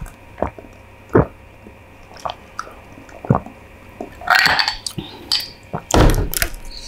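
Close-miked eating of stir-fried Mama instant noodles: chewing and mouth sounds with scattered short clicks, a noisy burst a little after four seconds, and a louder burst near the end.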